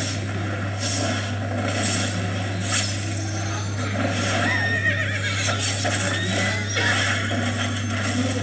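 Horse whinnying with hoofbeats, over a steady low hum.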